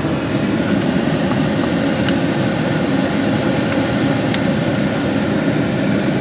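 A steady, loud mechanical drone of a machine running, with a couple of faint ticks.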